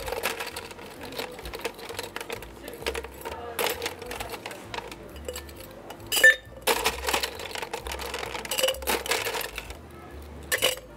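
Ice cubes clinking and rattling as they are scooped from a metal ice bucket and tipped into a stainless-steel cocktail shaker, with one sharp clatter about six seconds in.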